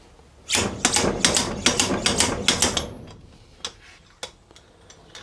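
Piston removal tool being worked in the small piston bore of a Yamaha blue spot brake caliper to pull the piston out: a quick run of metallic clicks and rattles for about two and a half seconds, then a few single clicks.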